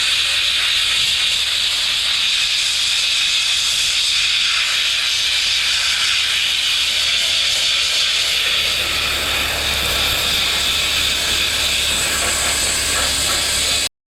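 Steady, loud hiss of an air-powered tool, such as a sandblaster or spray gun, working on a tractor wheel rim, over a low hum; it stops abruptly just before the end.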